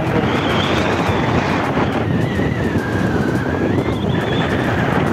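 Wind buffeting the microphone over a motorcycle engine running at road speed, a steady rushing noise with a faint wavering whine through it.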